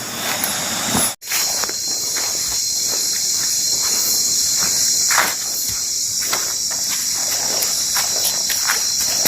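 Insects droning steadily in a high pitch, with irregular footsteps on a slippery trail underneath. The sound cuts out completely for a moment about a second in.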